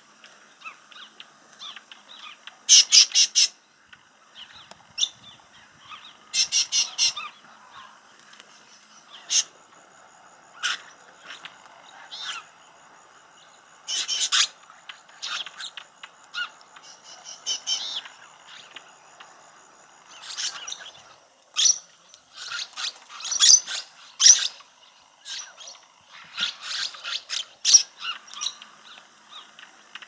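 Lorikeets giving high-pitched screeching calls in short rapid bursts, repeated every few seconds, with the loudest bursts about three seconds in and several more in the last third.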